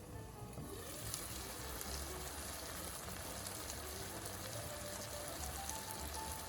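Tofu sizzling and frying in a pan: a steady crackling hiss, with soft background music underneath.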